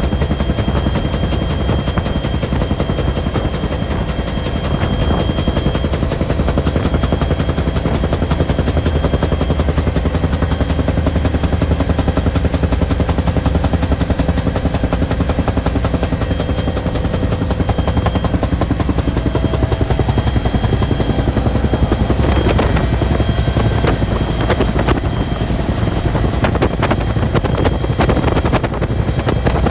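Bell helicopter's rotor and turbine engine running steadily in flight, heard from on board, with the rapid chop of the blades and a steady high whine.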